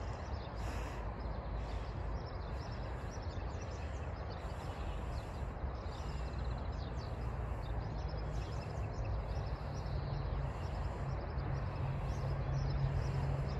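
Steady outdoor background noise, a low rumble that grows a little louder near the end, with faint bird chirps over it.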